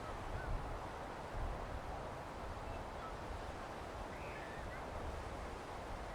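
Steady beach wind and sea noise, with wind rumbling on the microphone. A few faint, short bird calls come through, the clearest about four seconds in.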